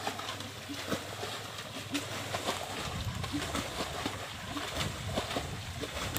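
Water splashing and sloshing in irregular bursts as pots and buckets scoop water out of a shallow flooded paddy field and fling it aside.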